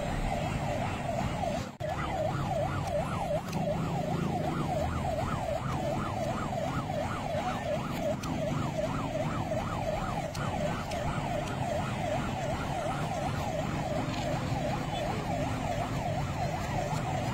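Electronic siren in a rapid yelp, sweeping up and down about three to four times a second without a break, over steady low street noise.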